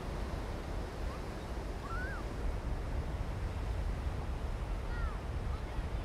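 Steady wash of ocean surf with a low wind rumble on the microphone, and a few faint short chirping tones about two seconds and five seconds in.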